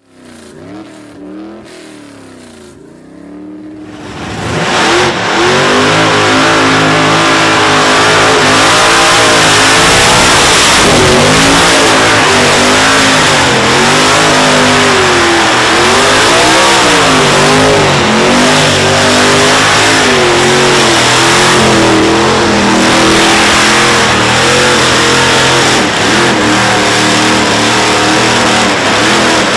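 Supercharged 700-plus cubic inch Chev big-block V8 in an old Ford F100 doing a burnout, the engine revving up and down without let-up with the rear tyres spinning. It is softer for the first few seconds and loud from about four seconds in.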